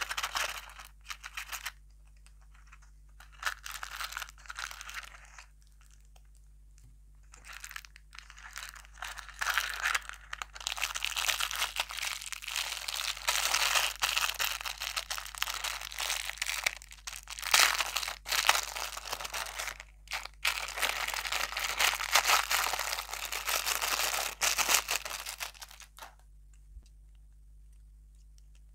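Thin clear plastic toy wrapper being crinkled and torn open by hand, first in short bursts, then in dense, crackly handling for about a quarter of a minute that stops abruptly about 26 seconds in.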